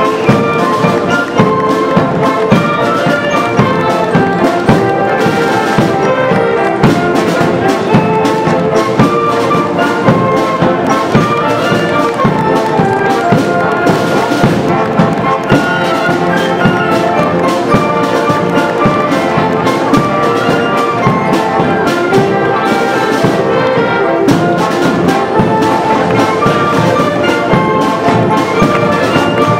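School band playing brass music with trumpets and trombones over drums that keep a steady beat.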